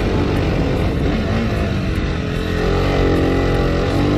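Motorcycle engine running under load as the bike climbs a steep dirt track. The revs sag about halfway through, then rise again near the end.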